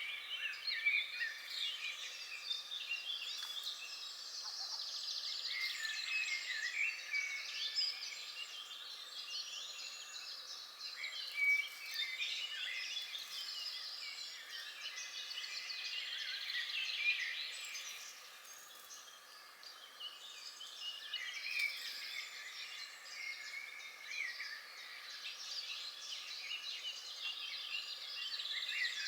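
A dense chorus of many birds calling and singing at once, overlapping chirps and trills that thin out briefly about two-thirds of the way through.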